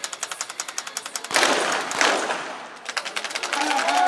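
Two shots from .22 rimfire sport pistols, about two-thirds of a second apart, each with a short ringing tail. A fast, even ticking stops just before the first shot, and a steady held tone starts near the end.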